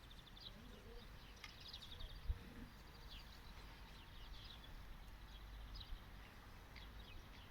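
Faint birds chirping in short high calls over a steady low rumble, with one sharp thump a little over two seconds in.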